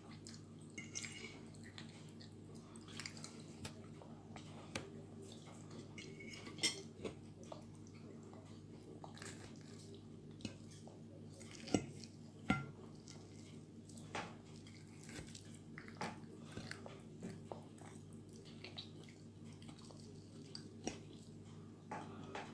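A small child chewing and licking his fingers: faint wet mouth clicks and smacks at irregular intervals, with a couple of sharper clicks about halfway through.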